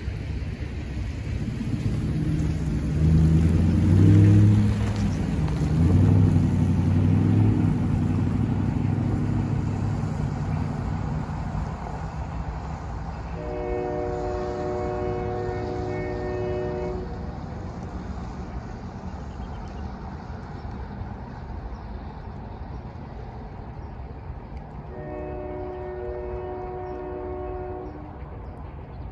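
Low rumble of a departing train, loudest a few seconds in and fading over about ten seconds. Then a diesel locomotive's multi-note air horn sounds twice in the distance, each blast about three seconds long.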